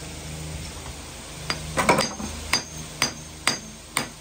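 Hammer striking a cracked ceramic floor tile to chip it off the concrete: about six sharp blows roughly half a second apart, starting about a second and a half in, each with a short high ring. The tile is poorly bonded to its thinset bed and breaks away easily.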